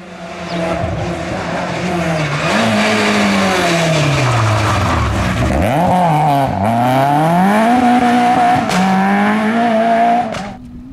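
Peugeot 106 GTi rally car's four-cylinder engine at full effort as the car passes through a gravel corner. The engine pitch falls steadily as it brakes and slows for the bend, then rises sharply and climbs again as it accelerates away, with a brief dip between gears. The sound cuts off abruptly near the end.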